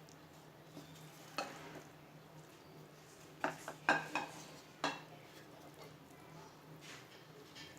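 A spatula scraping and knocking against the pan as cooked paneer stuffing is scooped out onto a plate: a few short scrapes and clinks, most of them bunched together around the middle, over a faint low hum.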